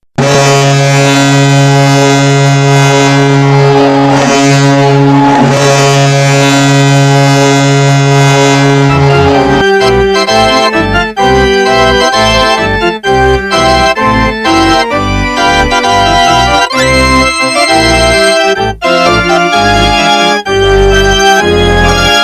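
NHL arena goal horn sounding one long steady blast for about nine seconds, then giving way to the team's goal song: loud music with a regular beat.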